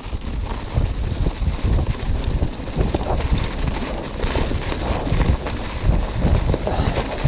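Wind buffeting the microphone over the rattle and irregular thumps of a hardtail mountain bike rolling fast down a rough dirt trail covered in dry leaves.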